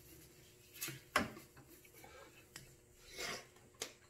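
Hand wet-sanding of a plastic headlight lens with 3000-grit sandpaper: faint rubbing strokes with a few sharp knocks, the loudest about a second in.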